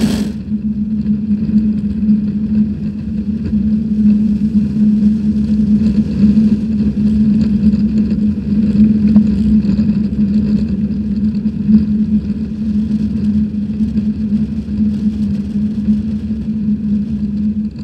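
Steady motor hum at a constant pitch, one low tone with fainter overtones over rough rushing noise.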